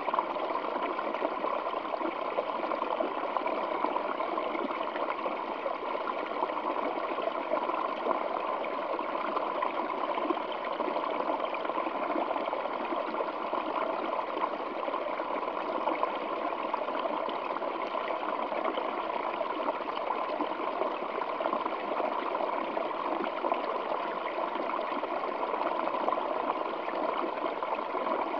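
Small waterfall flowing over rocks, a steady splashing rush with no change.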